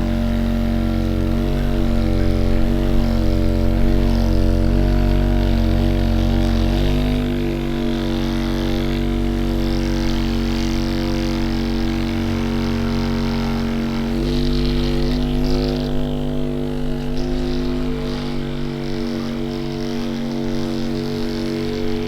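Electric vibration massage device running with a steady motor hum, its pitch changing about 7 seconds in and again around 14 seconds.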